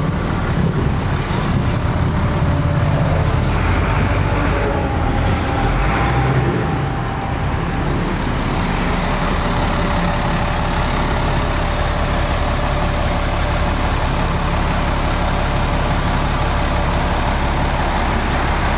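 2000 Chevrolet C6500 dump truck's engine running steadily while the raised dump bed comes back down; the sound is busier for the first several seconds, then settles to an even drone once the bed is nearly down.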